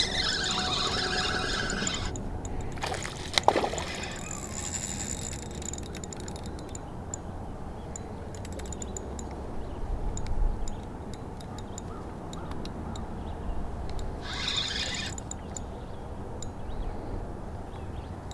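Spinning reel working against a hooked bass on a bent rod: the drag buzzes in short spells at the start and again near the end, over a low steady rush of wind and lake water.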